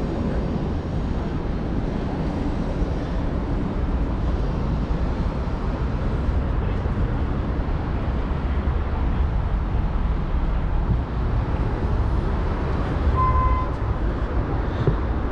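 Steady city street noise with a low traffic rumble, and one short beep near the end.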